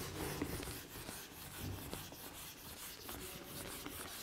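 Handheld whiteboard eraser rubbing across a whiteboard, wiping off marker writing in faint, repeated strokes.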